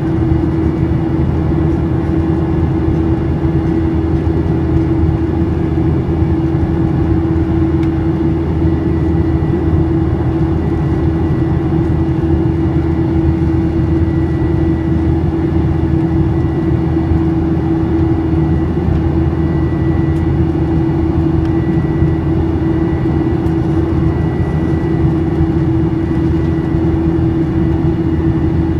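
Cabin noise of a Boeing 737-800 in flight: the steady drone of its CFM56-7B turbofan engines with a strong even hum, heard through the cabin wall.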